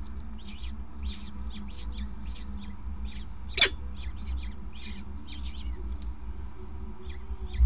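Peregrine falcon chicks begging with short, high, thin calls, several a second, as they are fed. One louder, sharper call comes about three and a half seconds in. A steady low rumble runs underneath.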